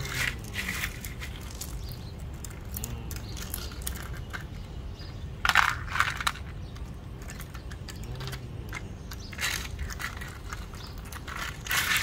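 Crushed gravel stones crunching and rattling against plastic as a toy front loader's bucket scrapes into a gravel pile and tips stones into a plastic toy dump truck bed, in several short bursts, the loudest about halfway through.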